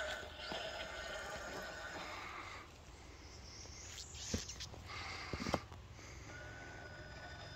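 RC rock crawler's brushless motor and geared transmission whining under throttle as it crawls over roots and rock. The whine drops away a bit under three seconds in. Two sharp knocks follow, about four and five and a half seconds in, before the whine picks up again near the end.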